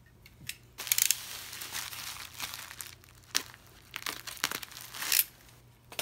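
Plastic bubble wrap crinkling and crackling in irregular bursts as hands pull it open. It starts about a second in and stops shortly before the end.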